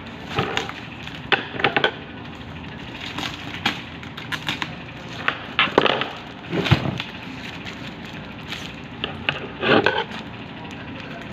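Packaging being handled during an unboxing: irregular crackles, rustles and clicks, with a few louder bursts of handling.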